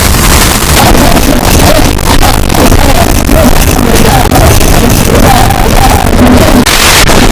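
A man's harsh, nasal screech, the "most annoying sound in the world", held on and heavily distorted and clipped, its pitch wavering up and down.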